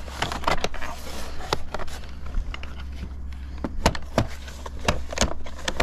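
Vinyl board and batten siding panel being worked into the undersill trim: a run of irregular sharp clicks and plastic knocks as the piece is pushed and its crimped tabs catch.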